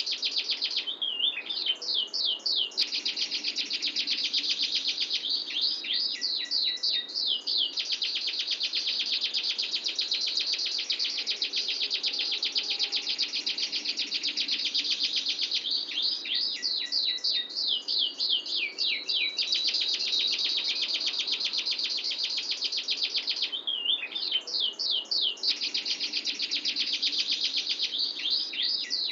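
Domestic canary singing a long, unbroken rolling trill, high-pitched and very fast, broken every few seconds by short runs of sweeping notes.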